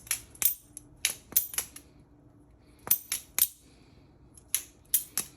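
Balisong (butterfly knife) being flipped open and closed, its handles swinging round and clacking against the blade and each other. The sharp metallic clicks come in quick clusters of three or four, about every second and a half.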